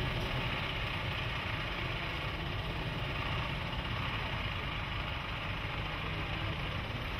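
Mercedes-Benz Unimog's diesel engine running steadily at low revs as the truck crawls slowly over rocks.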